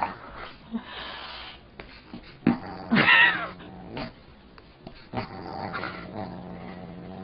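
A dog growling low and steady in two long spells while play-fighting with a cat. There is a short, louder higher-pitched cry about three seconds in, and a few light knocks.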